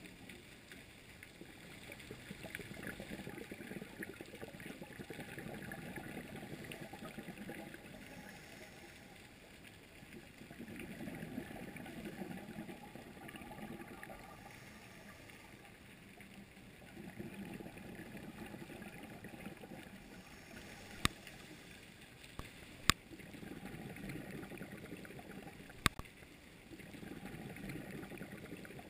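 Underwater sound of a scuba diver breathing through a regulator: exhaled bubbles gurgle in swells about every five to six seconds. A few sharp clicks come in the last third.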